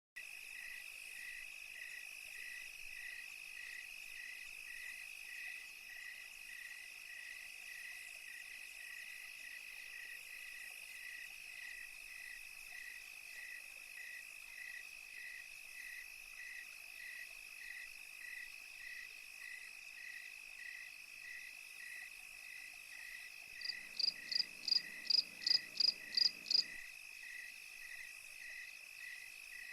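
Crickets chirping in a night chorus: a continuous high trill with a steady pulsing chirp repeating a little under twice a second. Near the end comes a louder run of about ten quick calls lasting about three seconds.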